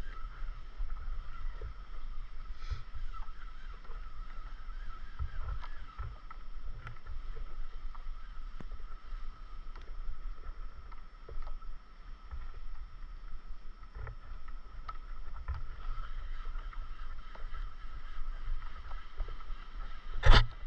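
Small waves lapping and knocking against a drifting stand-up paddleboard, with low wind rumble on the camera microphone and a faint steady whine. A single sharp knock, the loudest sound, comes near the end.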